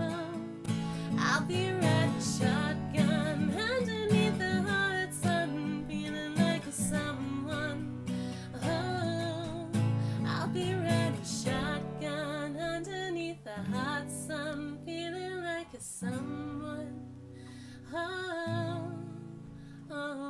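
Acoustic guitar strummed, with a woman singing along to it.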